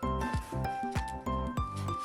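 Background music: a melody over a bass line with a steady beat.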